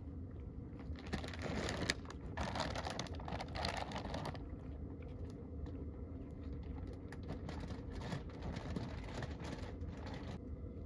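A dog crunching dry food off the ground, crackly clicks that come thick and loud from about one to four seconds in and thin out later, with a plastic food bag rustled near the start.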